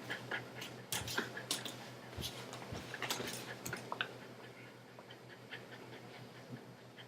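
A dog's close-up breathing and mouth noises: a run of quick, irregular clicks and snuffles for about four seconds, then quieter.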